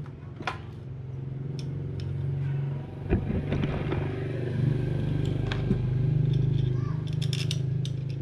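A small engine running steadily, with a few metallic clicks and clatter about three seconds in.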